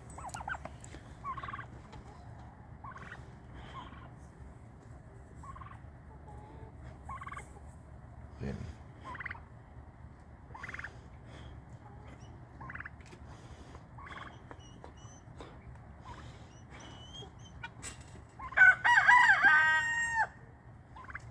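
Farm poultry calling, with short calls scattered throughout and one loud crow lasting about two seconds near the end.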